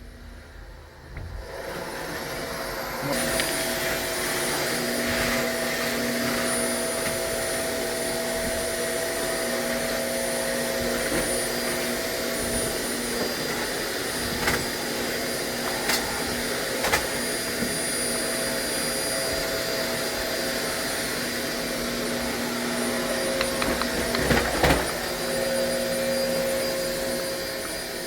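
A steady whirring motor noise that starts about two seconds in, with a few sharp clicks partway through.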